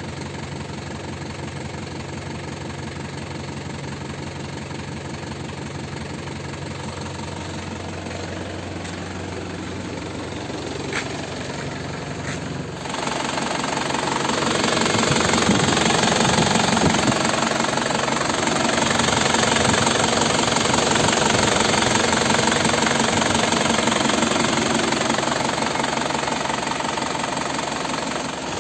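Isuzu Panther diesel engine running with a rough, rattly knock; about 13 seconds in the sound suddenly gets louder and fuller. The engine is in its rough phase, which the owner cannot explain: it alternates between running smoothly and running rough and hesitant.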